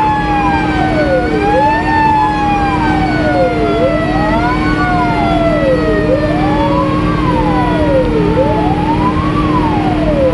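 Fire engine's siren wailing, rising and falling about every two seconds, with a second siren tone sliding slowly down in pitch and stepping back up twice. Heard from inside the cab over engine and road noise.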